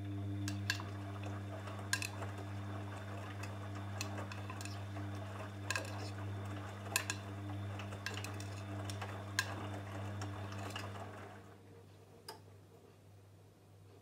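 Bosch VarioPerfect front-loading washing machine turning its drum in the wash: a steady motor hum with water and wet laundry sloshing and occasional sharp clicks. The drum stops about eleven and a half seconds in as it pauses between turns, leaving a faint hum and one more click.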